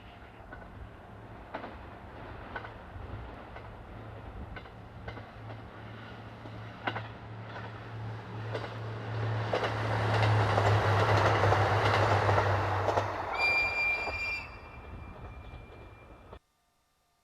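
A diesel railcar approaches and passes: its engine hum builds, with scattered clicks from the wheels over rail joints, and the train is loudest about ten seconds in. As it goes by, a steady high wheel squeal sets in, and then the sound cuts off abruptly.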